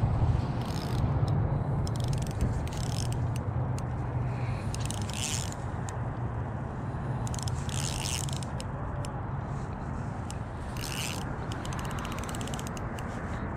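Wind rumbling on the microphone, with several short scraping buzzes and clicks from a spinning reel's drag giving line to a hooked trout that is still fighting.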